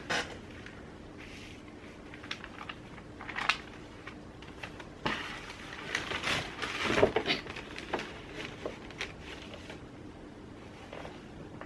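Scattered light clicks, taps and rustling of hands moving small tools and phone parts about on a work surface while searching for a dropped tiny screw, busiest a little past the middle. A faint steady hum runs underneath.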